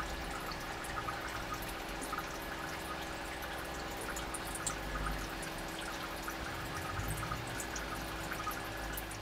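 Bread slices frying in hot ghee in a shallow pan: a steady sizzle with many small crackles.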